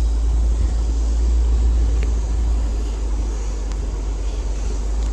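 Jeep driving slowly across farm fields: a steady low engine and road rumble.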